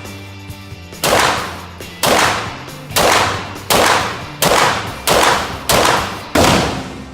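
Beretta M9A3 9mm pistol firing eight shots about a second apart, coming a little faster toward the end, each shot ringing out briefly. Background music runs underneath.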